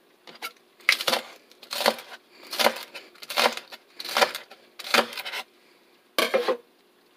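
Kitchen knife chopping leek stalks on a wooden cutting board: about seven short bursts of chops, a little under a second apart.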